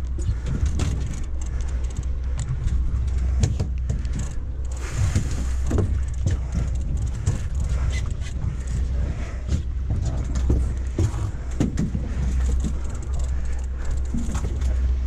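Boat's motor running steadily under way, heard as a low drone, with irregular wind buffeting and water noise crackling over it.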